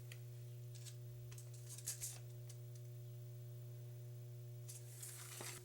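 Faint steady low hum with a few soft clicks, about two seconds in and again near the end.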